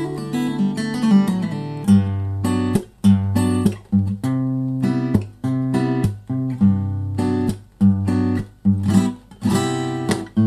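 Background jazz music on solo acoustic guitar: plucked chords and single notes in an easy rhythm, with brief breaks between phrases.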